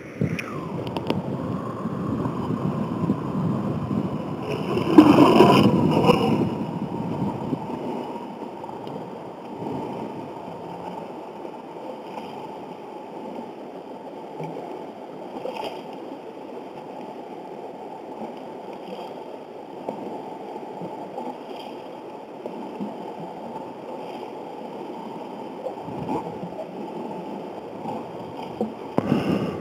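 Water gurgling and splashing as a plastic gravity-trap gold concentrator is flushed out in a stream. The splashing is loudest about five seconds in, then settles to the steady sound of running water.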